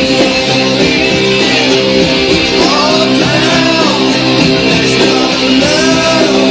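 Rock music with strummed guitars, a voice singing a couple of short phrases partway through.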